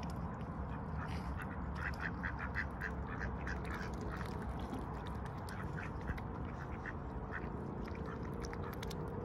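Swan feeding on seeds, its bill making a quick run of short clicks, then scattered single ones, over a low steady rumble.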